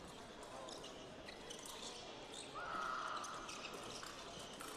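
Fencing-hall ambience: a low steady background murmur with scattered sharp clicks and squeaks from bouts going on at other pistes, and a short steady tone about two and a half seconds in.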